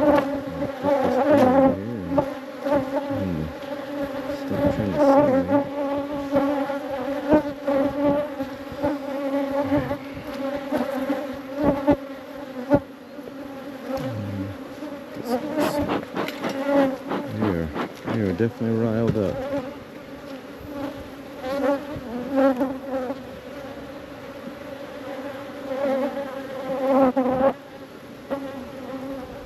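Honeybees buzzing around a hive: a steady drone, with individual bees flying close past and their pitch swooping up and down every few seconds. A few sharp clicks now and then.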